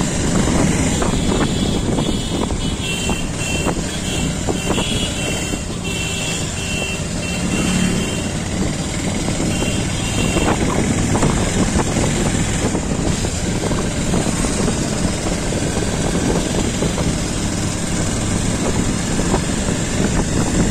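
Motorcycle riding along a road, heard from the rider's seat: the engine running steadily under a constant rush of wind and tyre noise.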